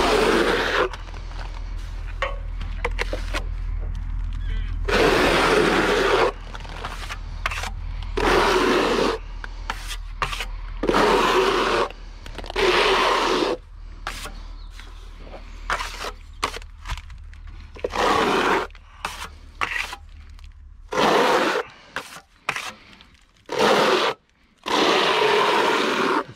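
Trowel scraping wet render across an insulated wall, about ten long strokes with short pauses between them.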